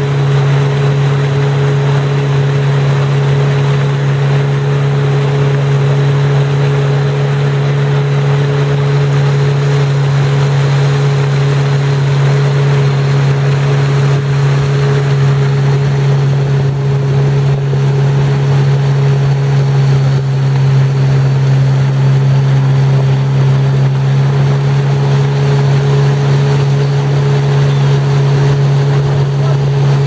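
Yamaha WaveRunner personal watercraft engine running at a steady cruising speed: a constant, unchanging drone, over the hiss of water rushing past the hull.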